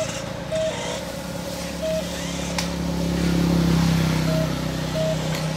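A motor running with a steady low hum that grows louder about three to four seconds in, then eases off, with brief faint beeps now and then.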